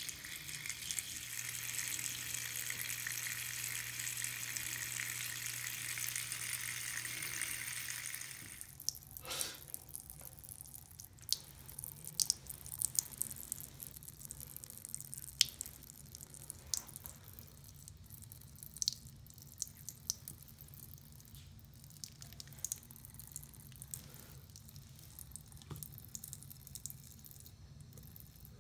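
A thin stream of water running from a bathroom sink faucet into the basin, a steady splashing hiss that drops to a quieter trickle about eight seconds in. After that come scattered sharp ticks and small splashes as a cat laps at the stream.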